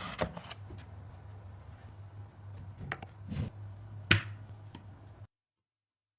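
A few sharp clicks, the loudest about four seconds in, over a steady low hum. The sound cuts out abruptly about five seconds in.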